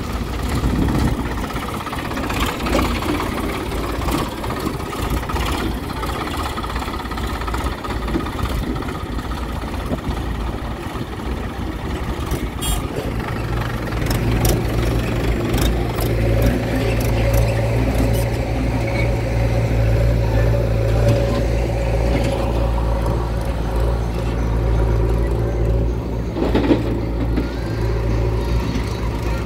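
Diesel engines of a backhoe loader and tractors running steadily. About halfway a deeper, louder engine drone sets in and holds, with a few short metallic knocks.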